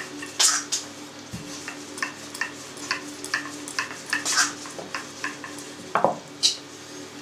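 Light clicks, taps and scrapes of hand work: a utensil scraping and tapping in a steel bowl of minced pork filling, and a wooden rolling pin rolling out dough on a floured board, a few small knocks a second, with a sharper knock about six seconds in. Under them is a faint steady hum.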